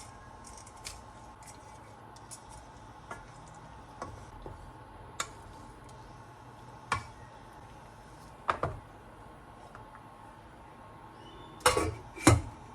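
Kitchenware being handled: a scattering of light clinks and knocks of dishes and utensils, with two louder knocks close together near the end.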